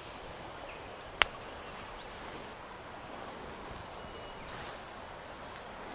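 Steady rushing background of stream water, with one sharp click about a second in and a few faint high chirps.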